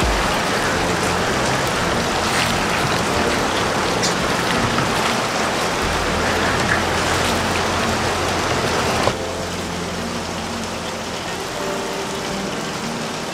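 Chicken karahi sizzling and frying in oil in a wok, stirred with a spatula, with a few light clicks of the spatula against the pan. The sizzle becomes a little quieter about nine seconds in.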